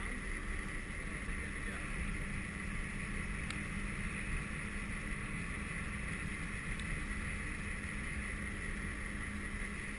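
Homebuilt electric go-kart driving steadily along asphalt: a steady whine from the electric motor and drivetrain over tyre rumble and wind on the microphone.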